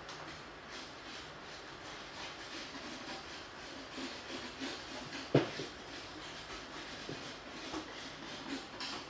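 Light handling noises, soft knocks and rubbing, with one sharp knock about five seconds in.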